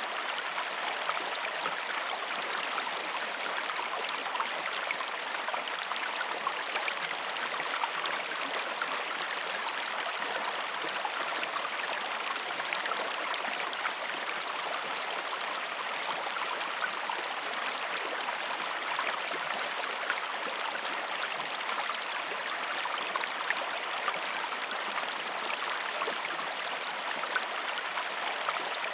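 A river stream running steadily, its water rushing and babbling with many small splashes and no break.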